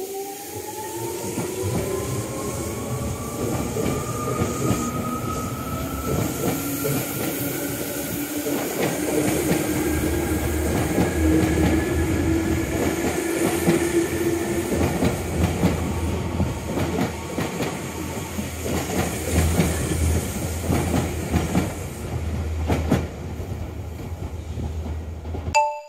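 Tokyu 8500 series electric train pulling out of a station and accelerating past. Its motors whine, rising in pitch over the first ten seconds or so and then levelling off, over the rumble and clatter of wheels on the rails. The sound cuts off suddenly near the end.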